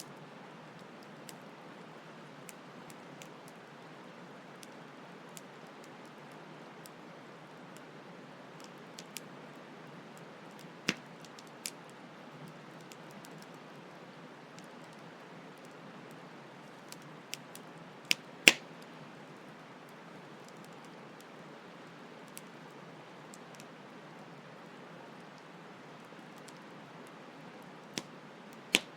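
Campfire crackling: scattered sharp pops and snaps, the loudest about two-thirds of the way through, over a steady hiss of flowing stream water.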